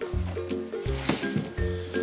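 Background music with a steady beat and repeating bass notes, with a short hiss about a second in.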